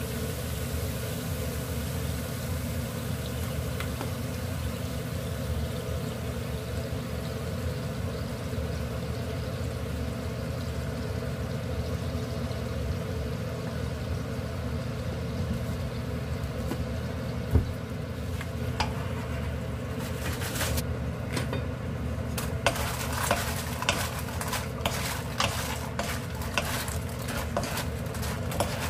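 Soy sauce glaze bubbling in a nonstick wok over a steady low hum. About twenty seconds in, a run of light clicks and scrapes begins as crisp fried pepper chips are tossed in the pan with a spatula.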